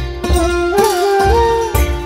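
Background music with a steady beat, about two strokes a second, under a melody that slides up and down.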